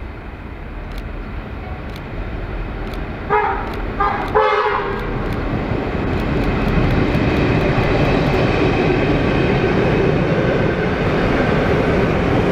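Diesel freight locomotive sounding its horn in three quick blasts, the last the longest, about three seconds in. Then the train's engine and wheels rumble steadily louder as it draws near.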